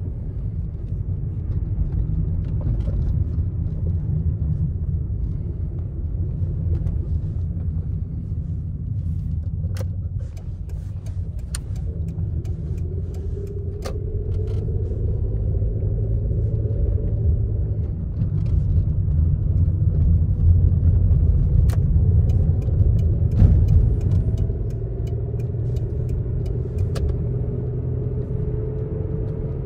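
Car driving on the road: a steady low rumble of engine and road noise, with the engine note rising in pitch twice as the car speeds up. There are several short sharp knocks along the way.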